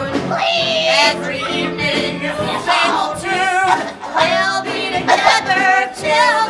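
Singers performing a musical-theatre song live over a steady accompaniment, women's voices leading with vibrato on held notes.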